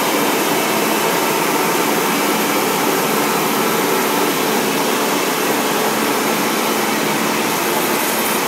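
Foam-cutting machine running with a steady whir and a faint hum while a large block of mattress foam is fed through it.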